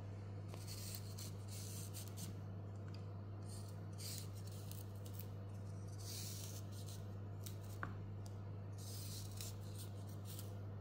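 Vegetable peeler scraping thin strips off a white asparagus stalk: soft, short scraping strokes every second or two, over a steady low hum.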